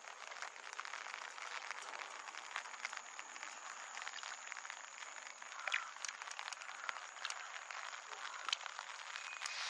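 Steady light rain pattering, a dense fine crackle of drops. A couple of short, louder chirps stand out about six seconds in and again near the end.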